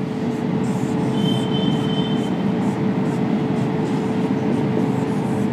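Steady low rumbling noise with a faint constant hum. About a second in, a faint high double whistle sounds for a second and a half.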